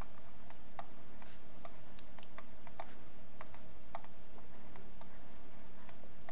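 Light, irregular clicks and taps of a stylus writing on a tablet, a few per second, over a steady low electrical hum.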